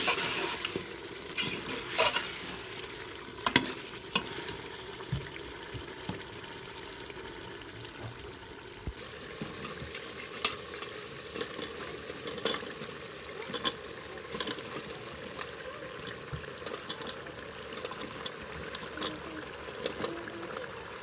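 A steel ladle stirring and scraping beef in an aluminium pot over a steady frying sizzle, knocking sharply against the pot several times in the first four seconds. From about ten seconds in, chunks of turnip and carrot drop into the pot with many light knocks.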